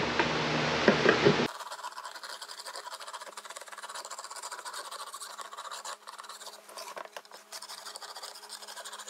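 A small chisel scraping dried glue off the glued-up wooden cutting board, a quick run of scratching strokes. It opens with a louder patch of noise that cuts off abruptly about a second and a half in.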